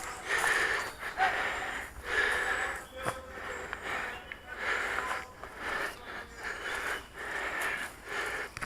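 A person breathing heavily and rhythmically close to the microphone, about one breath a second.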